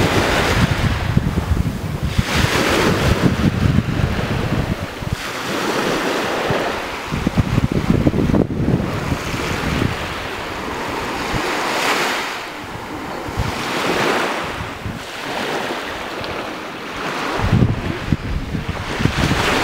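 Small surf breaking and washing up onto a sandy beach, swelling and fading every few seconds. Wind buffets the microphone with a low rumble for the first few seconds and again near the end.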